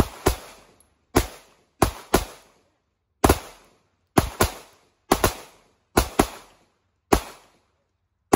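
Two handguns firing single aimed shots at an uneven, unhurried pace, about fourteen shots with several in quick pairs, each shot trailing off in a brief echo.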